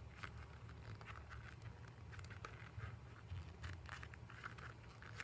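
Faint handling noise from a dense foam squishy toy being squeezed and turned in the hands: scattered light rustles and taps over a steady low hum.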